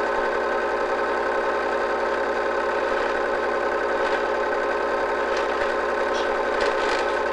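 Film projector running during a home-movie transfer, a steady mechanical whir with a constant low hum underneath.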